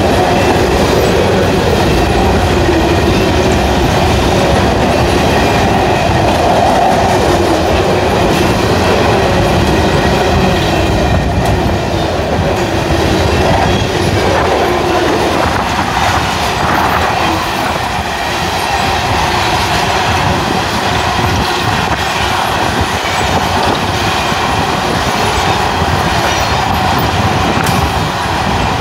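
Freight train's coal cars rolling past close by: a steady rumble and clatter of steel wheels on the rails, with a wavering wheel squeal through the first half that fades out about halfway through.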